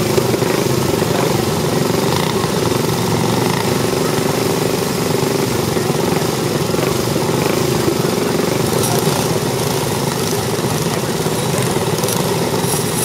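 Several racing go-kart engines idling together in a steady, unbroken drone while the karts sit bunched on the grid.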